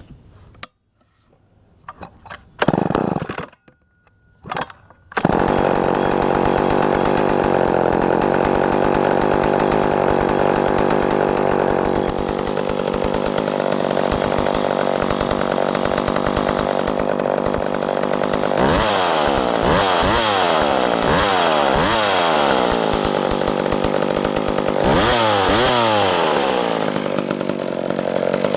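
McCulloch Mac 10-10 Automatic two-stroke chainsaw being started: it fires briefly a couple of times, then catches about five seconds in and idles. Later it is blipped several times in quick succession, revved once more, and settles back to idle.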